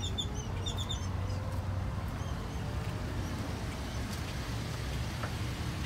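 Outdoor background: a steady low rumble, with small birds chirping briefly at the start and a few faint chirps after.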